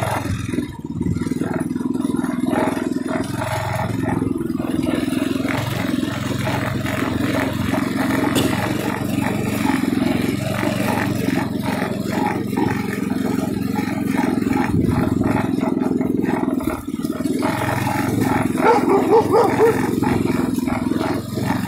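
TrailMaster MB200 mini bike's small single-cylinder engine running steadily while the bike is ridden, revving higher briefly near the end.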